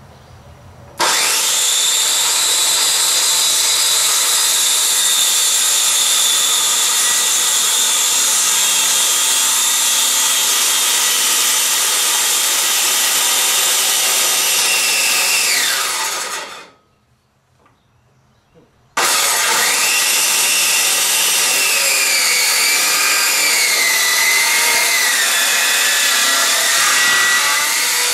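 Electric power saw running and cutting through wood boards, with a high motor whine. Around the middle it winds down with a falling pitch and stops for about two seconds, then runs again, its pitch wavering and dipping as the blade takes load.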